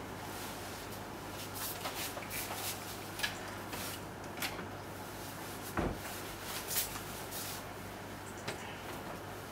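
Room tone with a low steady hum, broken by scattered soft knocks and rustles of a person handling a shoulder bag and a towel, with one duller thump about six seconds in.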